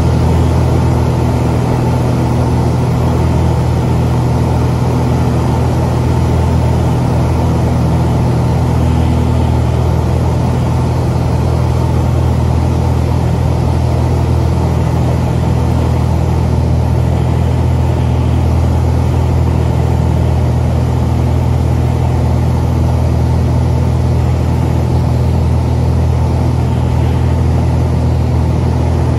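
Cessna 182's piston engine and propeller running steadily at a constant note, heard inside the cabin, with airflow noise over the airframe, as the aircraft descends toward landing.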